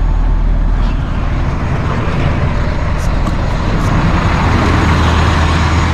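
Truck engine idling with a steady low hum. From about two seconds in the sound grows fuller and louder, with a few light clicks, as the cab door is opened.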